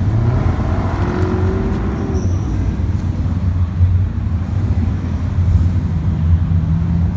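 Car engines running in street traffic: a steady low rumble, with a brief rise in engine pitch in the first couple of seconds.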